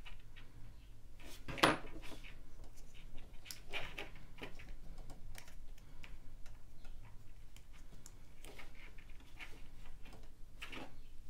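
Light clicks, taps and rustles of hands handling small battery wires and a connector on a cutting mat, with one sharper knock about one and a half seconds in.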